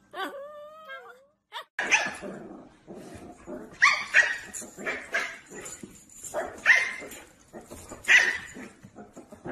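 A short wavering dog whine, then dogs barking and yapping in a quick, ragged run of sharp, loud barks.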